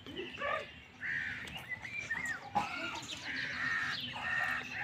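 A run of short animal calls, several over a few seconds.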